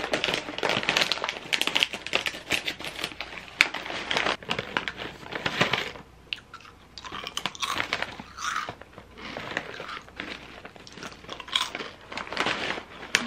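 A plastic-foil snack bag being cut open with scissors and crinkled, with hands rustling inside it. Then comes chewing and crunching of a sugar-coated sweet-potato snack, in short irregular crunches through the second half.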